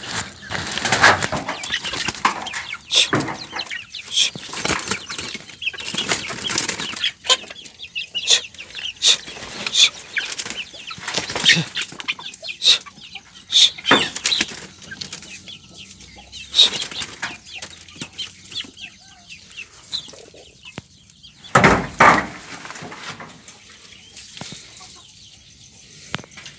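Irregular rustling, scraping and sharp knocks of a handheld phone being moved around, with plastic sheeting rustling, and a heavier thump about four-fifths of the way through.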